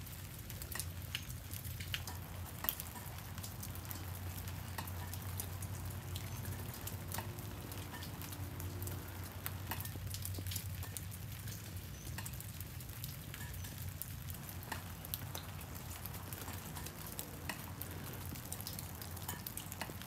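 Light freezing drizzle pattering and dripping on iced-over trees and ground: a steady run of small ticks, with a low steady hum underneath.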